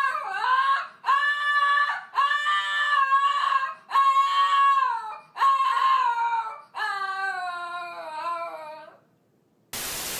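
A small Shih Tzu-type dog howling: about seven drawn-out howls in a row, each rising then held, the last one long and sliding down in pitch. Near the end, a short burst of TV-static hiss.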